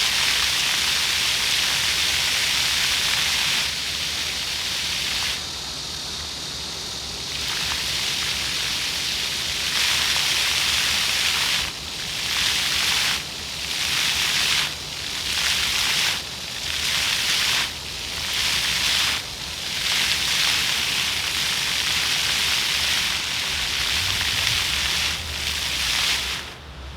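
Floor fountain jets spraying and splashing onto the pavement in a steady rush of water. Through the middle stretch the jets cut in and out about every second and a half, and near the end the spray drops off suddenly.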